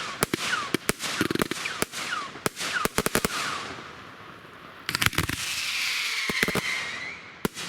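Fireworks going off in quick succession: sharp bangs with short whistles that fall in pitch, then about five seconds in a dense volley of reports with a crackling hiss.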